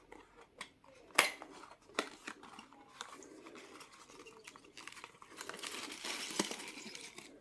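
Handling of a small cardboard advent-calendar box and its protective packing: scattered taps and clicks, then a longer crinkling rustle over the last couple of seconds as the packing is pulled away.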